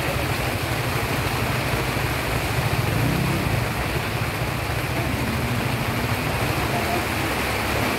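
Heavy rain falling steadily, with a low rumble underneath that swells briefly about three seconds in.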